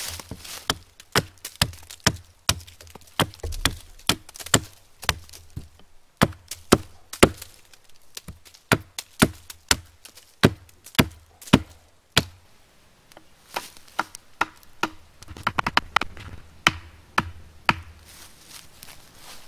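Hatchet chopping into a fallen log, sharp woody blows at about two a second, stopping about twelve seconds in, followed by a few sparser knocks.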